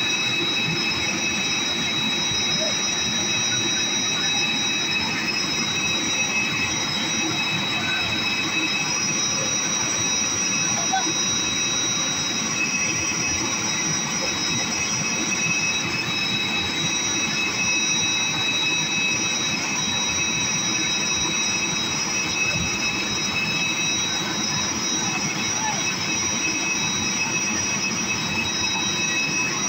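Airbus A320 auxiliary power unit running steadily: a high-pitched turbine whine of several steady tones over a broad rushing rumble.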